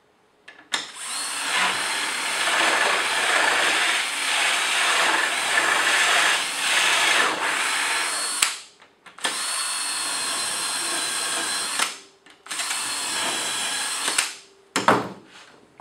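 Cordless drill turning a Blum Ecodrill jig, its 35 mm cup bit and two 8 mm bits boring a hinge hole into plywood: one long run of about eight seconds with uneven cutting noise, then two shorter, steadier runs with a thin whine, each stopping briefly. A short knock near the end.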